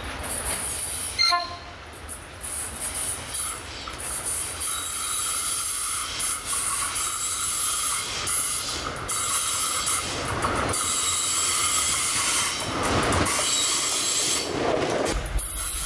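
Diesel freight train passing close on curved track: the locomotive comes by and the freight wagons roll past, wheels squealing against the rails on the curve.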